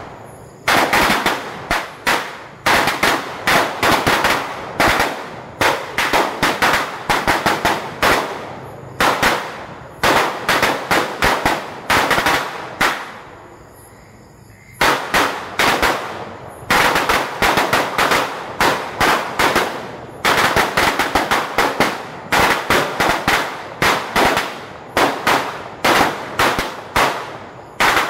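A long homemade braided string of firecrackers (a sawa) going off in rapid, irregular bangs, several a second. The bangs die away for about two seconds midway through, then start again.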